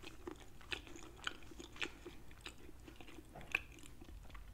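A person chewing food with the mouth closed, heard close up: faint, irregular wet clicks and smacks about twice a second.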